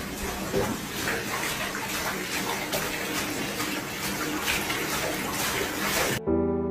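Water running into a bathtub from the tap while a dog paws and splashes in it, with repeated short splashes over the steady rush. It cuts off abruptly near the end, giving way to soft music.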